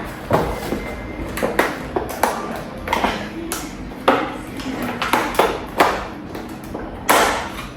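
Eggs and a plastic egg tray being handled in a fridge: about a dozen sharp clicks and knocks with a short ring, the loudest near the end.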